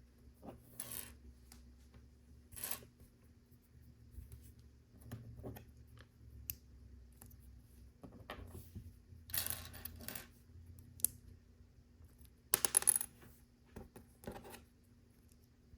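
Small hard plastic LEGO pieces clicking and clinking as they are handled, sorted and snapped together, with short rustling scrapes between; the loudest is a quick run of clicks near the end.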